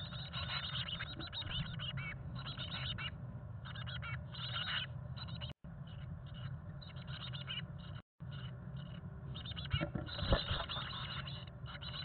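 Chickadee nestlings begging inside a wooden nest box, a rapid high-pitched chatter of many calls over a low steady hum, while a parent comes in to feed them. The chatter cuts out abruptly twice, and there are a few scratchy knocks of feet on the nest box near the end.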